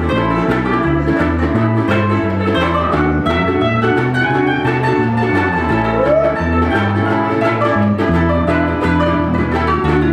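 Ukulele band playing a lively tune live: strummed ukuleles over an upright double bass plucking a stepping bass line.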